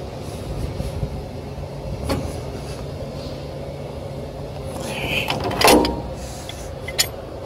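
Steady mechanical hum of running machinery, with a few short metallic clinks and knocks from hand tools, the loudest about two-thirds of the way through.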